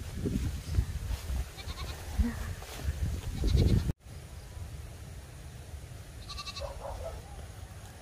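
Goats bleating, with one wavering bleat about three seconds before the end. The speaker says they cry because evening has come and it is time to go home. In the first half there is louder rustling and thumping from walking through leafy ground cover.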